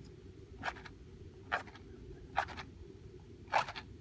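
A wooden match scraped against the striker strip of a matchbox four times in a row, each a short scratch a little under a second apart, without lighting.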